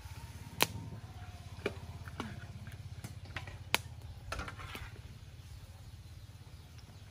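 A metal spatula knocks sharply against a wok a few times during stir-frying, with faint chirps, over a steady low, fluttering hum.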